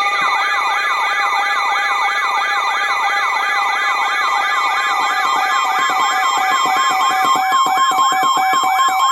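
Siren in a fast yelp, its pitch sweeping up and down about three times a second, layered over several steady alert tones.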